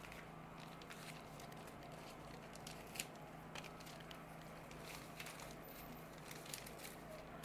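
Brown paper pattern pieces rustling and crinkling as they are handled and lifted, with scattered faint clicks, the sharpest about three seconds in, over a steady low hum.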